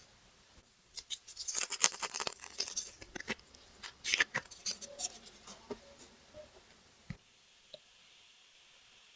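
Hands handling plastic packaging and small plastic toy pieces: bursts of crinkling and clicking, loudest around two and four seconds in, with one sharp click about seven seconds in.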